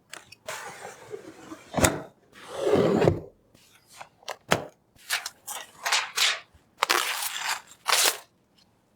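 Hands handling PC parts and their packaging: crinkling plastic in bursts of a second or less, with sharp clicks in between.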